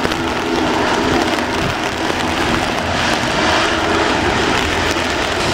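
Loud, steady aircraft engine noise from an airliner rolling out on a waterlogged runway after landing, with a turboprop's propellers turning close by, all over a constant hiss of heavy rain.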